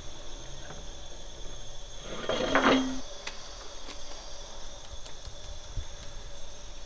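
Steady machine hum of a sangak bread oven and bakery. About two and a half seconds in comes a brief rasping scrape as sangak dough goes onto the oven's bed of hot pebbles, followed by a few faint clicks.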